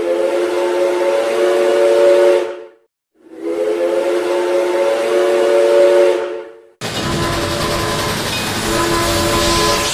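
Steam locomotive #425's chime whistle: two long blasts, each about three seconds, with several notes sounding together as one chord. About seven seconds in, a different, hissier whistle sounds with steam hiss around its steady notes.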